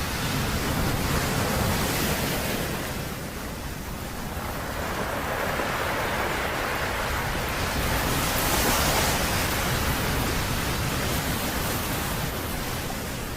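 Rushing wind and water noise of a motorboat underway, with a low rumble underneath, swelling and easing every few seconds.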